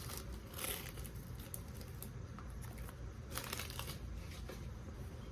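Plastic wrapper of a pack of Saladitas saltine crackers being torn open and crinkled, in a few short bursts: one under a second in and a longer one about three and a half seconds in.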